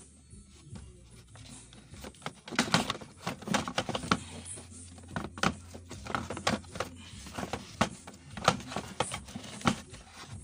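Irregular clicks, knocks and rattles of plastic and metal parts being handled as a vehicle's instrument panel gauge is worked loose, starting about two seconds in.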